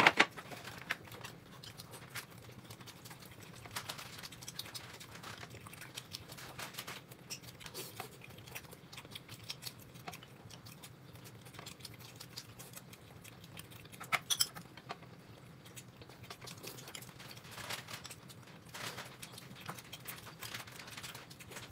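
Eating sounds at a table: scattered light clicks and taps of chopsticks and tableware, with a louder cluster of clicks about 14 seconds in, over a faint steady hum.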